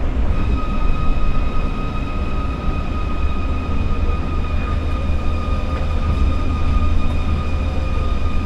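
Osaka Monorail train running along its elevated guideway, heard from inside the front car: a steady low rumble, with a high whine that comes in just after the start and holds one pitch.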